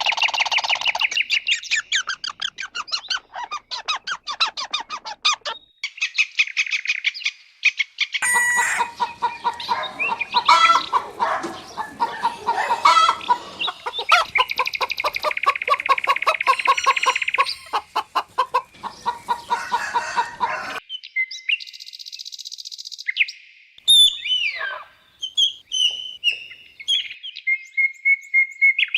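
Birds calling: long runs of rapid, pulsed chattering and clucking calls, then sharp falling chirps over the last few seconds.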